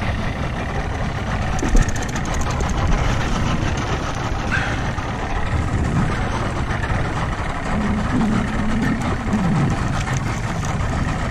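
Boat engine running steadily at idle under wind and water noise, with one short thump about two seconds in.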